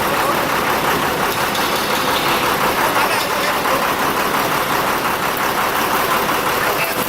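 900 kVA Cummins diesel generator set running steadily: a loud, even engine noise with a faint steady hum through it.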